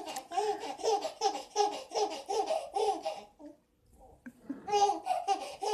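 A young child laughing in quick, even, high-pitched bursts, about three a second. The laughter pauses for about a second a little past halfway, then starts up again.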